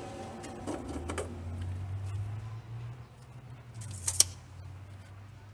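A few small clicks, then a sharp metallic clink about four seconds in, from metal hardware being handled, over a low steady hum.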